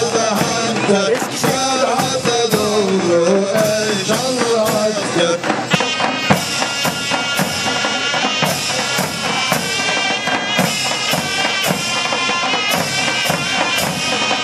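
Turkish mehter military band playing: regular davul drum strokes throughout, with a melody sung by men for the first five seconds or so, then shrill zurnas taking up a held melody.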